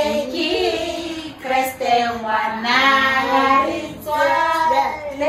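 Singing: a voice carrying a melody in long held, wavering notes.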